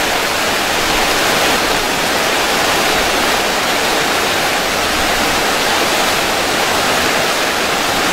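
Small mountain stream rushing down short cascades over rocks, a loud, steady rush of falling water.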